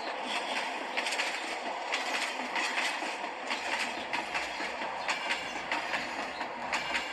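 A train running on rails: a steady rushing rattle with a repeated clickety-clack of wheels over rail joints.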